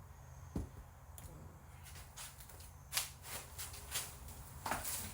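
Scattered light clicks and rustles of hands handling things, several of them close together in the second half, over a steady low hum.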